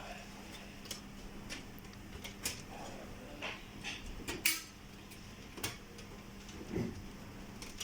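Scattered clicks and knocks of hard objects being handled, with a sharp clack about four and a half seconds in and a duller thump near seven seconds, over a faint steady hum.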